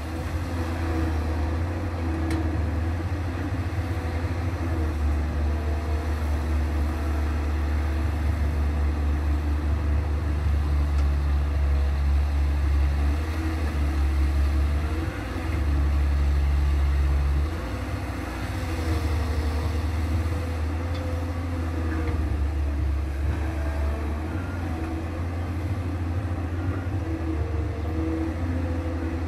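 Caterpillar 320B hydraulic excavator's diesel engine running under load with a deep steady rumble as it digs and loads dirt into a dump truck, its note wavering with the hydraulic work. The rumble swells louder for about two seconds just past the middle.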